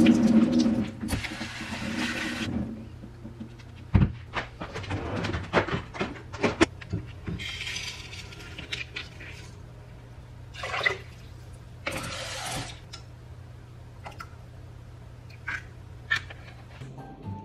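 Kitchen tap water running and splashing in several short spells, the loudest at the start, while rice is rinsed in a plastic colander bowl. Knocks and clatter of the bowl and a rice cooker's inner pot come in between, over a low steady hum.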